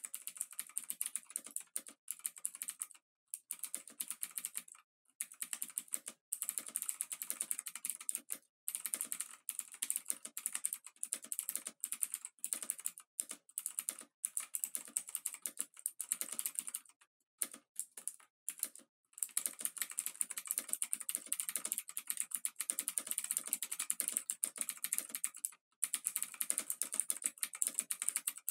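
Experimental noise piece: dense, rapid clicking and crackling, brightest in the high treble, broken by sudden brief silences at irregular moments.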